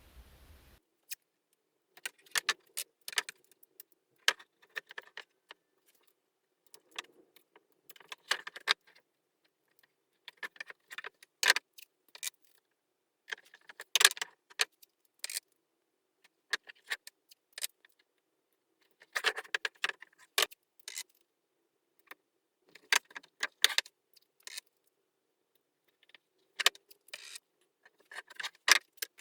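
Small metal pieces clinking and rattling as they are handled, in short irregular clusters of sharp clicks every second or two with brief quiet gaps between.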